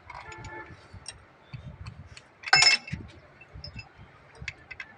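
Hard objects clinking and ticking, with a short metallic ring near the start and one loud ringing clink about two and a half seconds in, among scattered small clicks.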